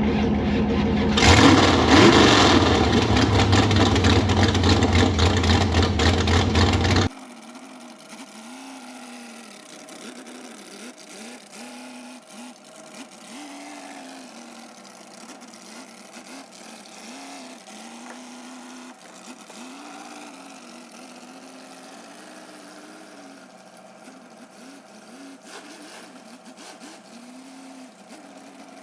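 Mud truck's engine running loud, revving up about a second in. About seven seconds in the sound cuts abruptly to a much quieter, thinner drone that wavers in pitch for the rest of the time.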